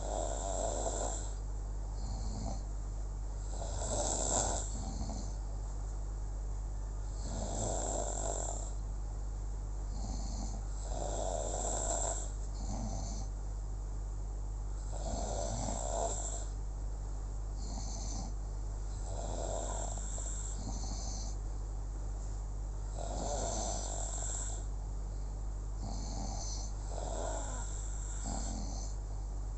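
Snoring in a slow, even rhythm, one loud snore about every four seconds with a softer breath sound between, over a steady low hum.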